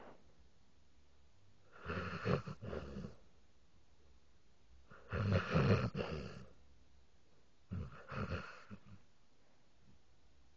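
Dog snoring: three snores, each about a second long, some three seconds apart.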